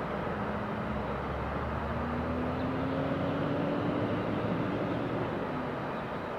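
Aircraft engine noise at the runway: a Boeing 747-8 freighter's jet engines rumbling steadily on the landing rollout, mixed with a Dash 8 turboprop's engine tone that slowly rises in pitch as it passes. The sound swells to its loudest about four seconds in, then eases.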